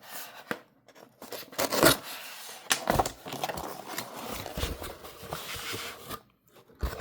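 Parcel packaging being handled and opened: rustling, scraping and tearing, with sharp loud strokes about two and three seconds in.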